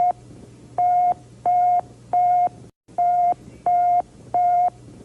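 Emergency Alert System–style electronic alert beeps: a steady mid-pitched tone sounding in sets of three short beeps, repeating after a brief pause, over a low steady hum.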